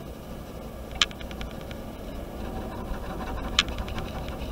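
Ballpoint pen scratching on paper in quick, short hatching strokes. It comes in two bursts, about a second in and again at about three and a half seconds, each opening with a sharp tick as the pen hits the paper, over a steady low hum.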